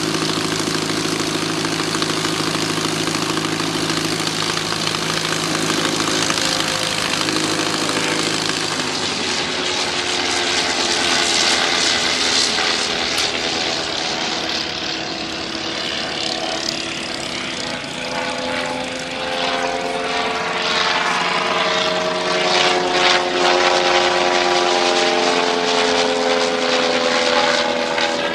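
Radio-controlled model aircraft's motor and propeller heard from on board, with air rushing over the microphone. The note holds steady, then about nine seconds in it shifts higher and wavers as the throttle changes through the manoeuvres.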